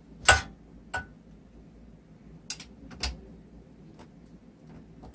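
Tools and metal parts clicking and clinking while the minibike's exhaust is being unbolted. There are about five short, sharp clicks; the first, about a third of a second in, is the loudest, and the later ones are lighter.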